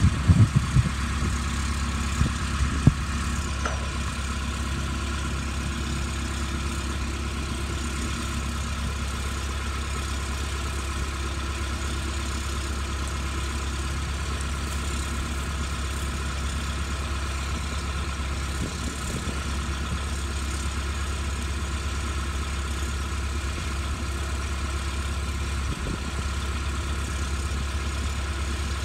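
Heavy engine idling steadily, with a few sharp knocks in the first three seconds.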